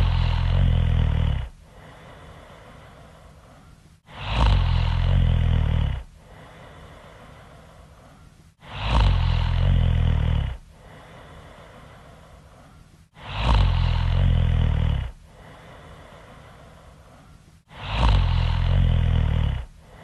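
A woman snoring loudly in a slow, even rhythm: five loud, rattling in-breath snores about every four and a half seconds, each with a quieter out-breath after it.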